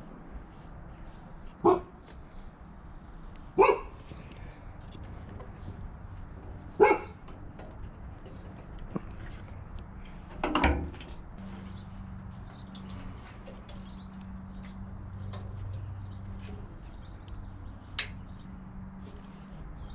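A dog barking: four single barks a few seconds apart, with a faint click near the end.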